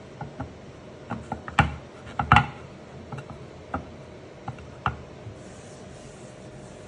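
A ceramic cat bowl knocking and clinking against its holder and the wooden table as it is wiped down with a paper towel: a string of irregular light knocks, loudest about one and a half to two and a half seconds in, stopping after about five seconds.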